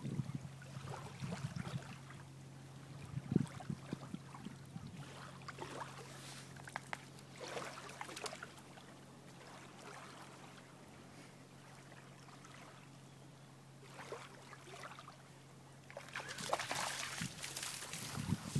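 A dog wading in shallow lake water: light splashing and trickling of water around its legs, with a soft thump about three seconds in. Near the end there is a louder rustling hiss.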